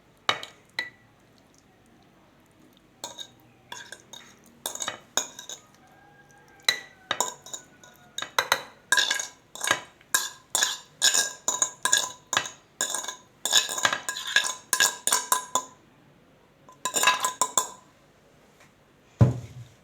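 A spoon clinking and scraping against a jar and bowl as dried figs in olive oil are spooned into the jar: a run of sharp, ringing clinks, sparse at first, then coming quickly for several seconds in the middle, with a short dull knock near the end.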